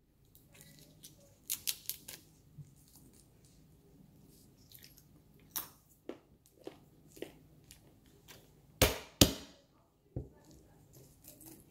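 Small clicks and crunches of nutshells being picked apart and nuts being chewed, then two sharp knocks close together about nine seconds in: a metal meat-tenderizer mallet striking a walnut on the countertop to crack its shell.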